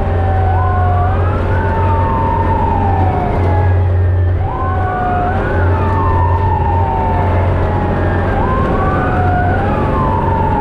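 Fire truck siren wailing, each sweep rising and then falling over about four seconds, with a second slower-gliding siren tone beneath it. It is heard from inside the truck's cab over a steady engine drone.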